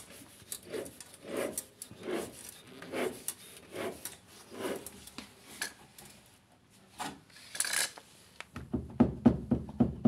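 Repeated rubbing scrapes, about one every three-quarters of a second, then a sharper scrape and a quick run of low knocks near the end.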